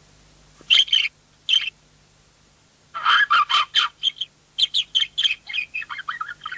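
Budgerigar chirping: a couple of short chirps about a second in, then a quick run of chirps and chatter from about three seconds in, over a faint steady hum.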